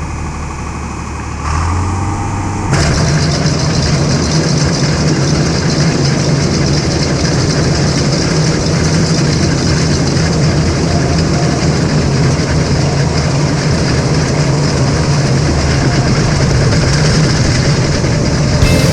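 Tractor engine running a John Deere round baler, which is at work in the field. The sound steps up twice in the first three seconds, then holds steady.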